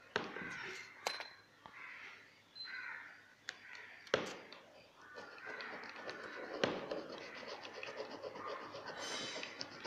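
Steel screwdriver tip scratching back and forth on a phone's cracked Gorilla Glass back panel: a dry scraping with a few sharp clicks as the tip catches, turning into fast, even strokes in the second half. This is a scratch test, and the metal leaves no scratch on the glass.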